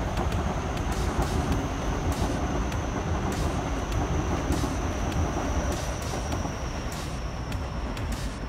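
Electric commuter train running past on the elevated track: a steady rumble of wheels on rail with repeated sharp clicks over the rail joints and a thin high whine.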